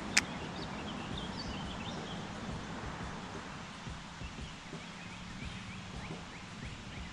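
Outdoor ambience with a steady low rush and many faint, short bird chirps scattered throughout. A single sharp click sounds just after the start.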